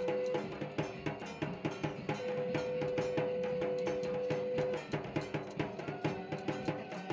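Background music with a steady drum beat and long held notes.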